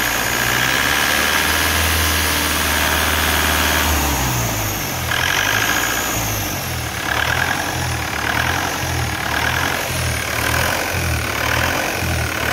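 FPT diesel engine running, held at raised revs for about four seconds, then dropping back and surging up and down repeatedly as its speed is varied at the injection pump lever.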